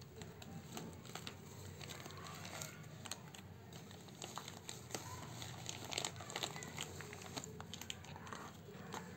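Plastic courier mailer bag and its bubble-wrap packing crinkling and rustling as they are handled and pulled open, a run of short crackles.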